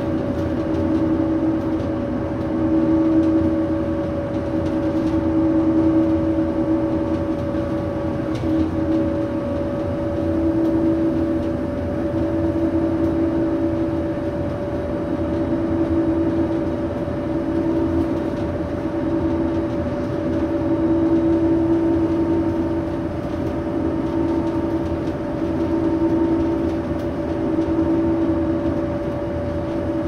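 Road vehicle heard from inside while driving at steady speed: a continuous hum of two held tones over low road rumble, swelling and fading every two to three seconds.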